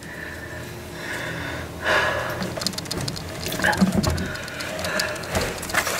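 Handling noise inside a hunting blind: rustling, clicks and bumps as the camera is moved around. It starts faint and gets busier and louder from about two seconds in.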